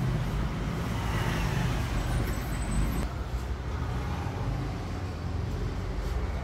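Steady low background rumble, like distant road traffic.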